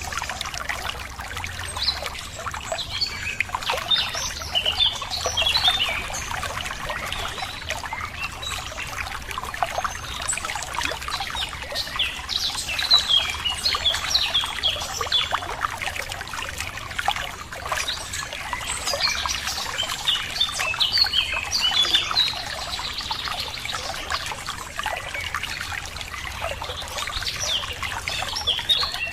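Running water trickling and splashing steadily, with small birds chirping and singing in scattered bursts over it.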